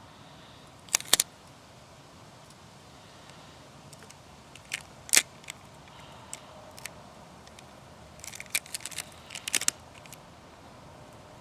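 Transfer tape being peeled slowly off a vinyl decal on window glass, giving scattered sharp crackles and clicks: a pair about a second in, a couple around five seconds in, and a cluster near the end.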